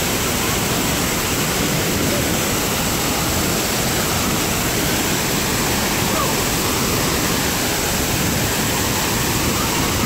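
Large waterfall plunging onto rocks and a pool: a loud, steady rush of falling water.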